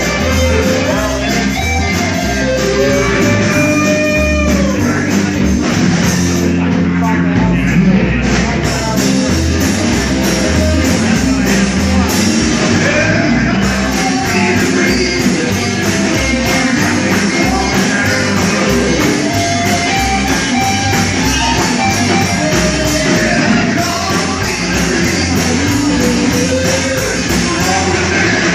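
Loud rock music played by a full band.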